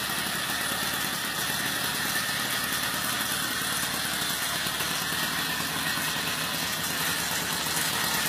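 50cc two-stroke engine on a motorized bicycle idling steadily, running properly.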